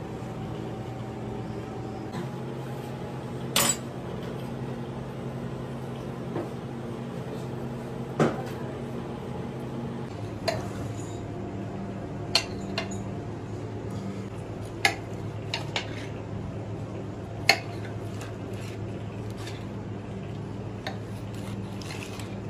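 A large kitchen knife slicing grilled squid on a ceramic platter, the blade clicking sharply against the plate about ten times at irregular intervals, over a steady low hum.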